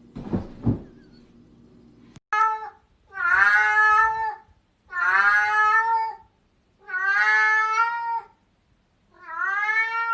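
Domestic cat meowing over and over: one short meow, then four long, drawn-out meows of about a second each, with short pauses between them. Two brief low thuds come first, right at the start.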